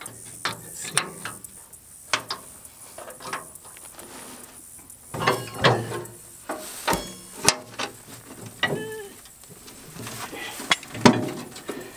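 Adjustable wrench on the gearbox mounting bolts of a rotary mower's steel deck, tightening bolts that had worked loose: scattered metal clicks and clanks, with a few short squeaks around the middle.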